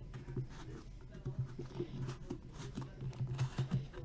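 Hands opening a small trading-card box: scattered small clicks, taps and scrapes of fingers and lid against the box, over a low steady hum.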